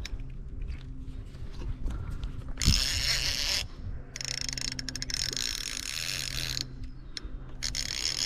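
Fishing reel working against a hooked catfish: three spells of fast, ratchet-like clicking, each lasting a second or two.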